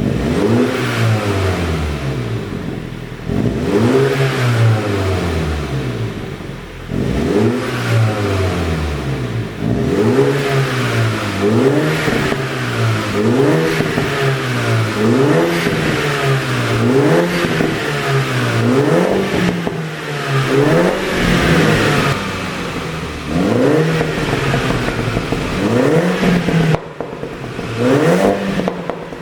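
A 2016 Mini Cooper John Cooper Works (F56), its 2.0-litre turbocharged four-cylinder revved over and over. First come a few longer revs, then quick blips every second or so, the pitch rising and falling each time. The exhaust is tuned to pop and crackle on the overrun.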